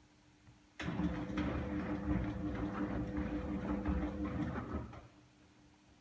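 Zoppas Perfecta P5 front-loading washing machine turning its drum during the wash: the motor starts with a click about a second in, runs with a steady pulsing hum and the churning of the wet laundry for about four seconds, then stops suddenly.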